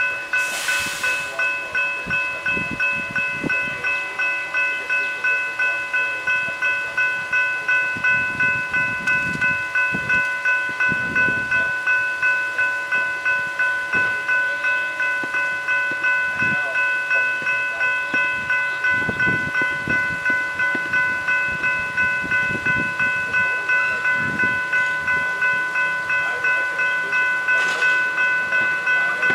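Level crossing's General Signals Type 3 electronic bells ringing in a steady, evenly repeated rhythm, the warning that the crossing is activated for an approaching train. Low rumbling rises and fades underneath at times, with a short hiss about a second in.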